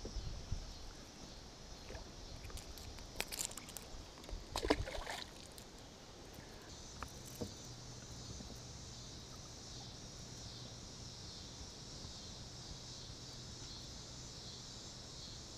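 Quiet drift-boat sounds on a river: a few knocks and splashes of water over the first five seconds, then a faint, steady high hiss.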